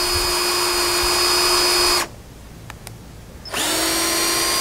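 Cordless drill boring a pilot hole into a pressure-treated timber beam. It runs steadily, stops abruptly about two seconds in, and after a couple of faint clicks spins up again with a rising whine and runs on.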